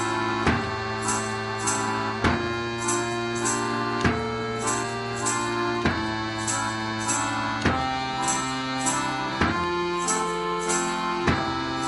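Instrumental background music with a steady beat: sustained pitched notes over regular percussive strikes and jingles.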